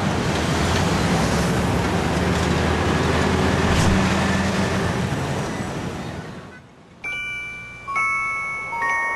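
Road traffic noise with a steady low engine rumble, fading out about six seconds in. Then bright, ringing mallet-percussion notes are struck three times about a second apart, the start of a chime-like tune.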